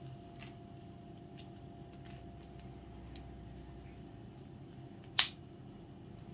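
Wooden chopsticks clicking, light scattered ticks with one sharp click about five seconds in.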